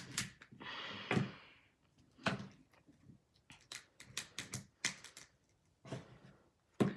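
Irregular small clicks and taps, with a brief scrape about a second in, as the loose parts of a disassembled iPhone 3GS and a small tool are handled on a table.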